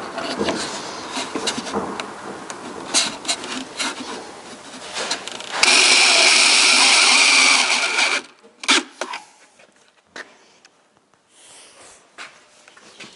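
Cordless drill running steadily under load for about two and a half seconds, starting a little before halfway and cutting off suddenly. Before it, clatter and knocks of the drill and timber being handled at the cabinet frame; a few knocks after.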